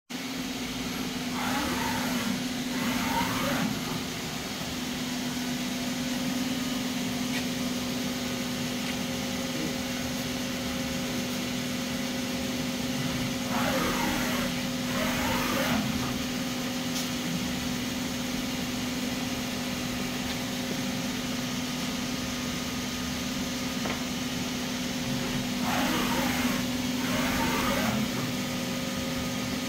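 Doosan Lynx 220LMA CNC turning center running with a steady hum. Three times, about twelve seconds apart, a whine rises and falls in pitch twice in quick succession as the spindle speeds up and slows down.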